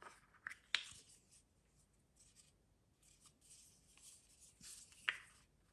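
Faint handling sounds of the small plastic tripod that comes with a DJI Osmo Mobile 6 gimbal as its legs are folded out by hand: light rubbing with a few short clicks, the sharpest about a second in and another near the end.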